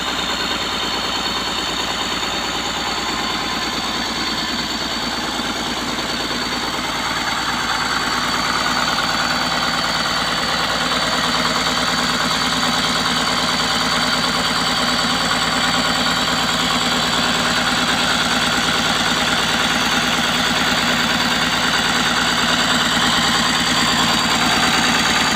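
Heavy machine's diesel engine running steadily just after starting, with a high steady whine over it. It grows a little louder about eight seconds in.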